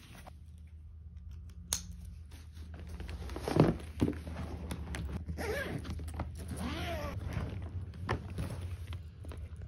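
Suitcase being packed and closed: fabric rustling and small clicks, a sharp plastic click of the compression-strap buckle snapping shut about three and a half seconds in, then the suitcase zipper being run along the lid in rasping strokes.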